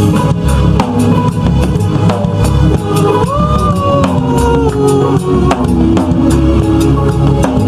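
Music with a drum kit playing a beat of bass drum and snare over steady low bass notes. A held melodic note bends up and then slides down between about three and five seconds in.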